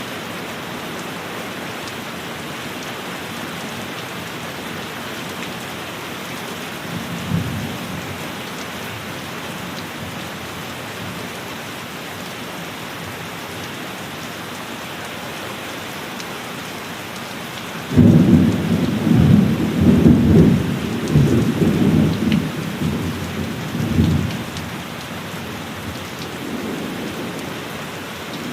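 Steady heavy rain, with a faint low rumble of thunder about seven seconds in. About eighteen seconds in, a loud thunderclap breaks suddenly and rumbles on in several rolls for about six seconds before fading back under the rain.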